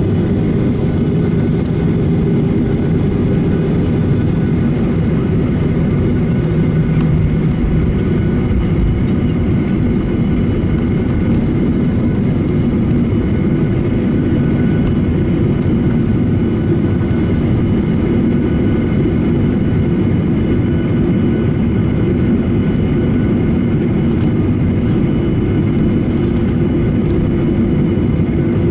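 Airliner cabin noise while taxiing: the jet engines run at taxi power as a steady low rumble, with faint steady whining tones above it.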